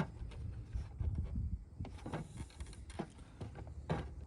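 A 2022 Jeep Grand Cherokee rear turn signal assembly is pushed into place on the body, its metal prongs seating in their inserts. It gives about five short separate clicks and knocks over a low rumble.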